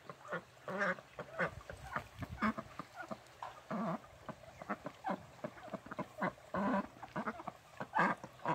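Domestic ducks quacking repeatedly: short calls coming at irregular intervals, some louder than others.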